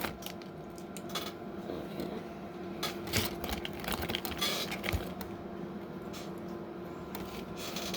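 Plastic Lego bricks clicking and clattering as pieces are sorted and snapped together, scattered small sharp clicks over a faint steady hum.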